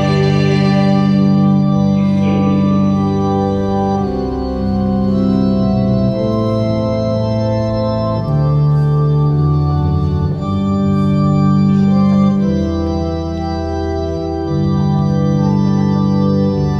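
Organ playing sustained chords over long held bass notes, the harmony changing every second or two, in an instrumental passage of a liturgical song.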